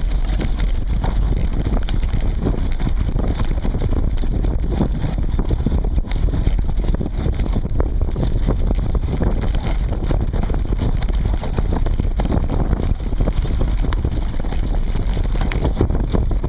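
Mountain bike running fast over a dirt woodland trail, heard through a seatpost-mounted camera: steady wind noise on the microphone and tyre rumble, with many small knocks and rattles as the bike goes over bumps.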